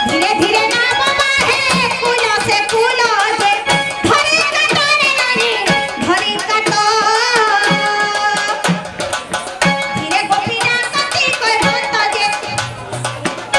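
Danda Nacha folk music: a woman sings an ornamented, wavering melody into a microphone over a two-headed barrel drum played in quick, dense strokes.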